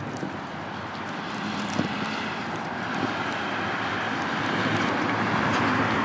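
A passing vehicle's engine noise growing steadily louder, with no clear tone.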